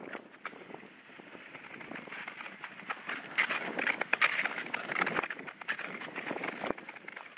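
Tour skate blades scraping and gliding over frosty sea ice, with many sharp clicks and crackles, loudest for a stretch from about three seconds in.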